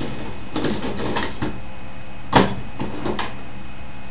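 Hard tools clicking and clattering as they are picked through: a quick run of light rattles, then one sharper knock about two and a half seconds in, over a steady low hum.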